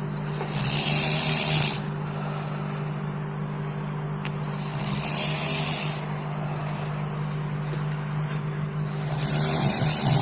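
A person snoring in sleep: three loud breaths about four seconds apart, over a steady low hum.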